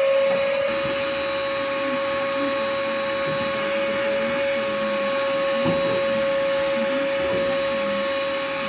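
Vacuum cleaner motor running steadily with a constant high whine.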